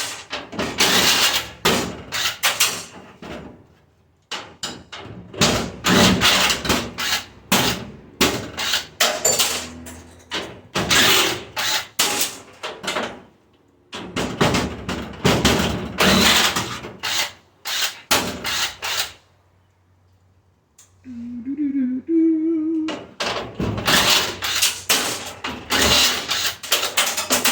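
Repeated thunks, knocks and clattering of sheet metal in bursts with short pauses: hands-on work taking apart a stainless steel restaurant dishwasher.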